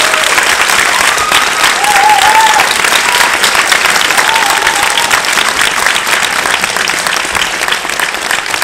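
Audience applauding steadily after a ballet pas de deux, with a few short cheers from voices over the clapping in the first half.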